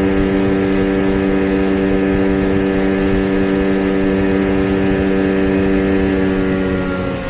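Allfa 9.8 hp outboard motor running at steady high revs, driving the boat at speed. Its pitch sags slightly near the end.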